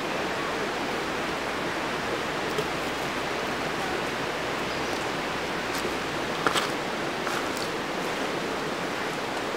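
Steady rushing of a shallow, rocky creek flowing over stones, with a few brief clicks, the clearest about six and a half seconds in.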